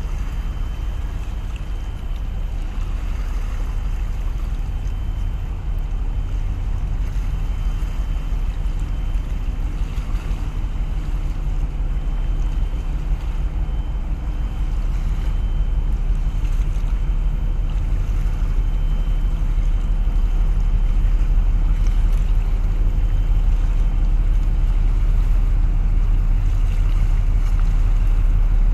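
Deep, steady rumble of the large container ship Ain Snan Express passing close by under way, growing somewhat louder after about twenty seconds.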